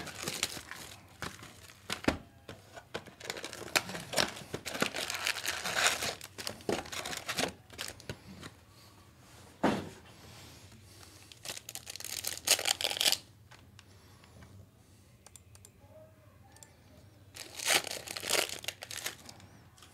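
Plastic wrapping on a box of 2022-23 Panini Prizm Fast Break basketball cards and its packs being torn open and crinkled, in irregular bursts. It goes quieter about two-thirds of the way through, then crinkles again near the end.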